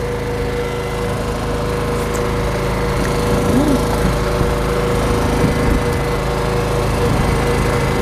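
A small engine aboard a fishing boat running steadily, a constant-pitched droning hum that doesn't change speed.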